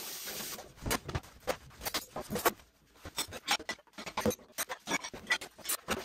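Household things being handled and put away while tidying: a short rustle at the start, then an irregular run of small knocks, clicks and rustles.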